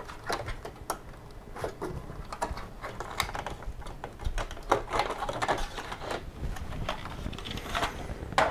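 Internal covers of an HP Z800 workstation being unclipped and pulled out of the case. Irregular clicks, snaps and knocks as they come free and bump against the chassis.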